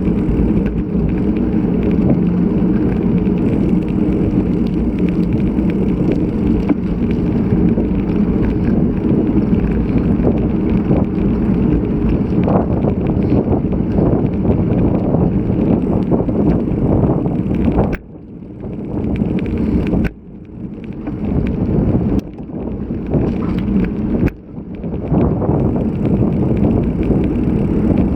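Wind rushing over an action camera's microphone on a moving bicycle, with low rumble from the ride. Several times in the later part the rush cuts out abruptly and then builds back up.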